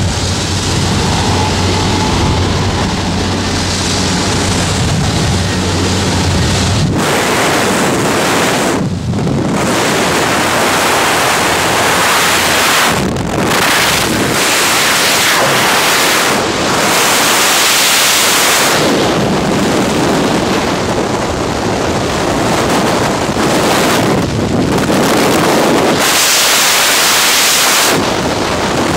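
Jump plane's engine droning with wind rushing past the open door, then about seven seconds in the low drone drops away and freefall wind buffets the camera microphone as a loud, steady rush with brief dips.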